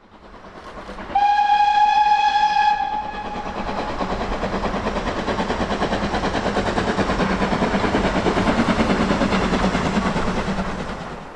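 Steam locomotive whistle blowing once for about a second and a half. Then a steam train runs past with rapid rhythmic beats, fading near the end.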